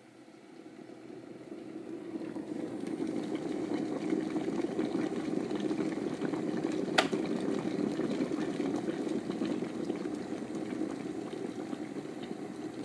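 Kettle coming to the boil: a rushing, bubbling rumble that builds up over the first few seconds and then holds steady, with one sharp click about seven seconds in.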